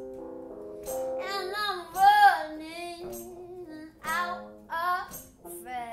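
A high, young voice sings a melody in several short phrases over held keyboard chords.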